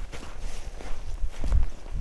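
Footsteps of a hiker walking along a forest trail, each step landing as a low thud with a light scuff.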